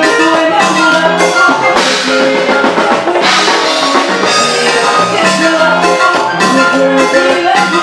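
Live Latin dance band music played loud over the PA, with a steady drum-kit beat and brass from the trombones.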